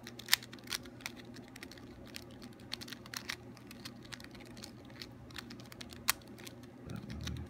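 Party City mini 3x3 puzzle cube being turned quickly by hand: a run of irregular plastic clicks and clacks as its layers snap past one another, with two sharper clacks about half a second in and about six seconds in, over a steady low hum.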